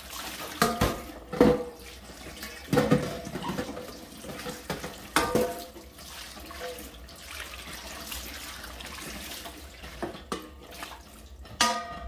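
Kitchen tap running onto a stainless steel bowl as it is rinsed in a stainless steel sink. The metal bowl knocks and rings against the sink several times.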